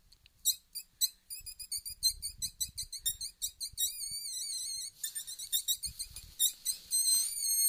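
Wolfers Harp mouth-blown predator call, used to lure a fox, sounded in rapid runs of short, high squeaks. Longer wavering squeals come about four seconds in and again near the end.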